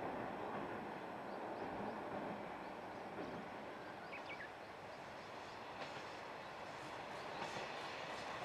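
KiHa 58 diesel railcar train running, its DMH17H diesel engines and wheels making a steady rumble, with faint rail-joint clicks starting near the end.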